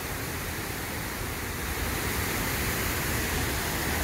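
Steady rushing of a small stream and waterfall flowing over rock, a little louder in the second half.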